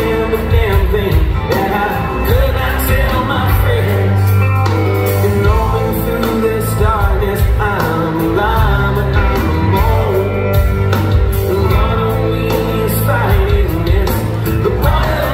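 Rock band playing live: a male lead singer over electric guitars, bass and drums, heard from within the audience in a large hall.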